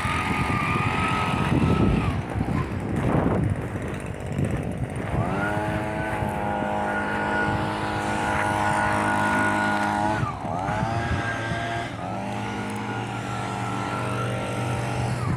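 Heavy diesel engine of construction machinery revving up about five seconds in and holding at high revs, dipping briefly about ten seconds in and revving back up, over a mechanical rumble.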